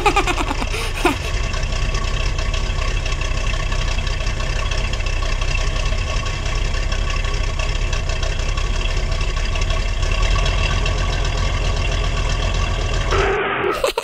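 A vehicle engine sound effect, running steadily at an even pitch. It cuts out suddenly shortly before the end.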